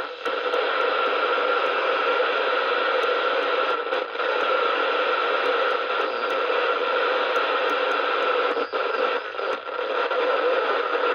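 CB radio receiver hissing with steady band-limited static, a faint steady tone running through it, as the rotary channel selector is turned through the channels. Small clicks sound here and there, with brief drops in the hiss.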